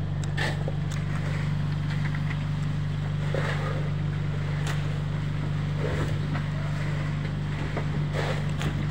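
An engine running steadily, a low even hum, with a few faint knocks and clatter from fish and ice being handled.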